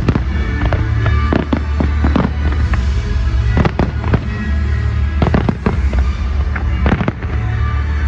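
Fireworks bursting overhead, many sharp bangs and cracks coming irregularly, several close together, over loud music with heavy bass.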